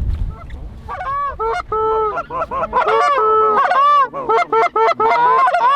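Canada goose honks: from about a second in, many short, overlapping honks, growing thicker and louder toward the end.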